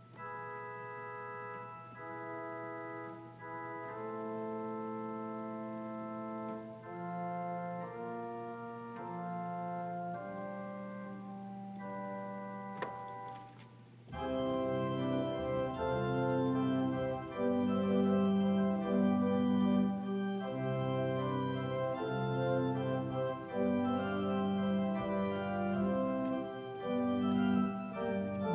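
Organ playing held chords that change about once a second, softly at first. About halfway through, after a single click, it becomes much louder and fuller, with deep bass notes added.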